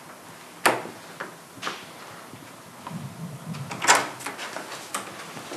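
A door being opened and shut: a series of sharp clicks and knocks from the latch and door. The loudest knocks come about two-thirds of a second in and about four seconds in.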